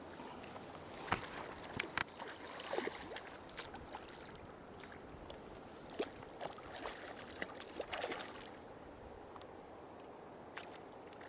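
Moving river water, with irregular splashes and sloshes in the shallows and a few sharp clicks over a steady flow.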